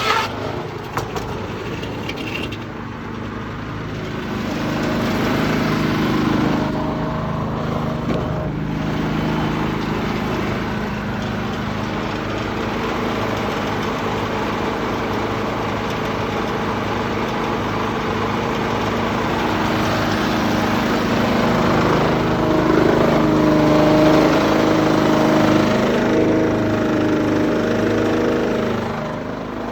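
A sawmill running, driven by a Detroit 6-71 two-stroke diesel engine, heard muffled from inside an overall pocket. The engine drones steadily and gets louder about five seconds in, and again in the second half, as the saw takes load, then eases off just before the end.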